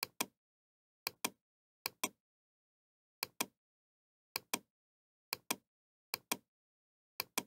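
Computer mouse clicks coming in quick pairs, about eight pairs roughly a second apart, against dead digital silence.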